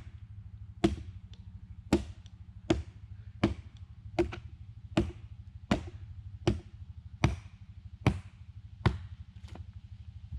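Hatchet chopping wood: about a dozen sharp strikes into the wood at an even pace, roughly one every three-quarters of a second, over a steady low hum.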